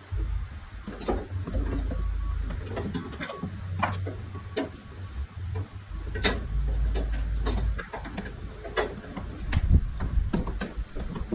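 About a dozen sharp taps and knocks at irregular intervals over a low rumble.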